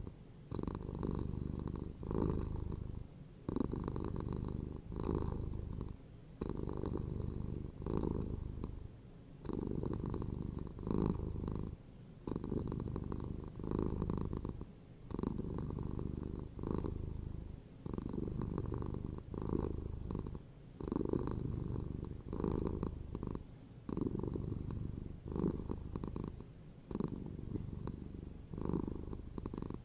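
Domestic cat purring steadily, in long even pulses with a short break between each one every second or two.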